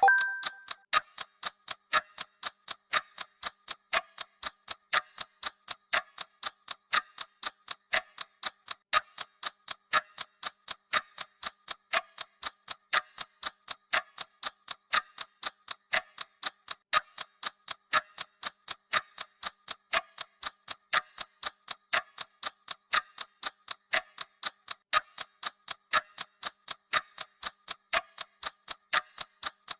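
A brief electronic alert beep at the very start, then a clock ticking steadily at about two ticks a second, alternating tick and tock, marking the countdown seconds.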